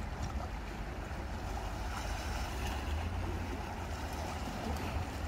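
Small sea waves washing against shoreline rocks, under a steady low rumble of wind on the microphone.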